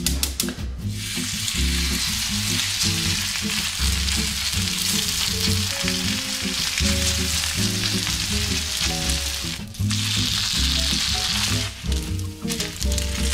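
Chive pancake batter sizzling in hot oil as it fries on a cast iron griddle. A dense sizzle starts about a second in and drops out briefly near the end.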